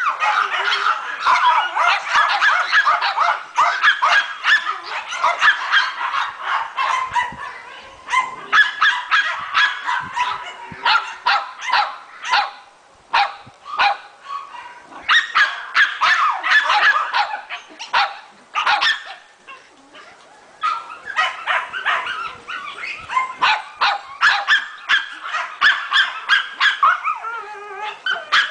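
Maltese puppy yapping: rapid, high-pitched barks in fast runs with a few short lulls.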